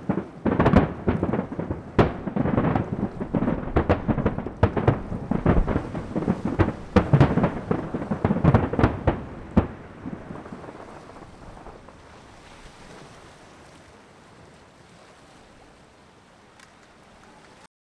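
Fireworks finale: a dense, rapid string of shell bursts and crackling bangs that stops about ten seconds in. The echoing rumble then fades away until the sound cuts off abruptly near the end.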